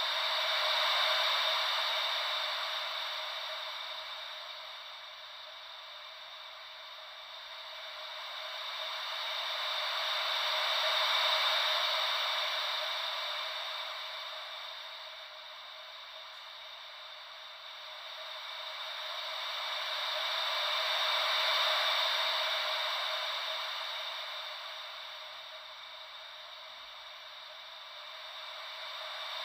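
Ocean-wave white noise: a steady hiss that swells and fades about every ten seconds, three times, like waves rolling in and drawing back, with no deep rumble beneath it.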